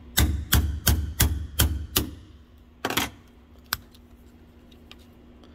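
A metal blade clicking and knocking against a red plastic automotive blade fuse on a steel bench as the plastic housing is being broken open. There is a quick run of about six sharp clicks in the first two seconds, then two more single clicks a second or so later.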